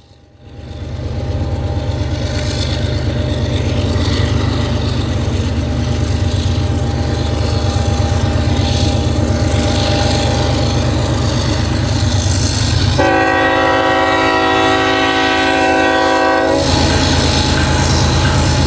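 Freight train's diesel locomotives working hard as the train gets underway, a steady low engine rumble. About 13 s in, the locomotive horn sounds one long blast of about three and a half seconds, a chord of several notes.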